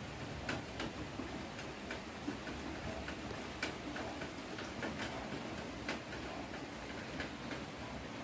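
Irregular light clicks and taps from hands handling battery wire clips and the phone, over steady low background noise.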